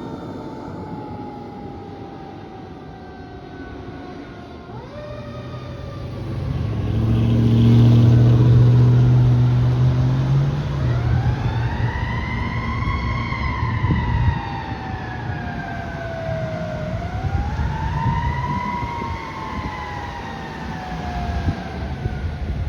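Fire engine responding with its siren wailing. The siren falls slowly at first and jumps back up about five seconds in. Then comes a long air horn blast of about four seconds, the loudest sound, over the truck's engine rumble. After the horn the siren rises and falls slowly twice more.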